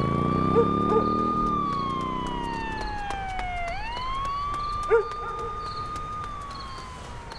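Emergency vehicle siren wailing: it rises, holds, slides slowly down, then rises and holds again before falling away near the end. A vehicle engine revs up briefly at the start, and there are a few knocks, the loudest about five seconds in.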